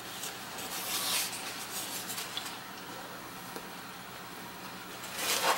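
A metal fork scraping and rubbing against food on a flimsy paper plate. The strongest scrape comes about a second in, and another near the end.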